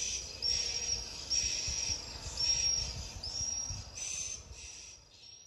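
Countryside ambience: a high-pitched call repeating roughly once a second over a low rumble, fading out near the end.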